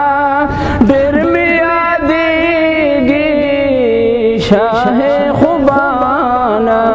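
A man singing devotional Urdu verse in praise of the Prophet, a naat, solo, in long held notes whose pitch wavers and bends.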